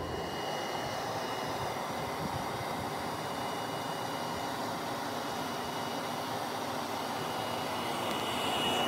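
Built-in electric blower fan of a Halloween inflatable yard decoration running steadily, with rushing air and a faint high whine, as it inflates the figure.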